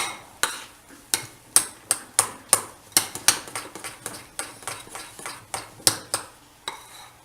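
A spoon stirring besan batter in a bowl just after Eno is mixed in, clicking against the bowl about two to three times a second, the strokes thinning out near the end.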